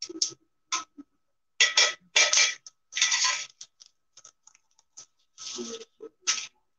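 Plastic packaging crinkling and rustling in gloved hands, in short irregular bursts with brief pauses between them.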